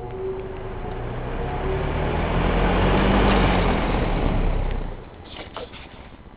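Vintage Lakewood 20-inch box fan with aluminium blades running, its rushing air growing louder over about three seconds, then dropping off sharply about five seconds in, followed by a few light clicks.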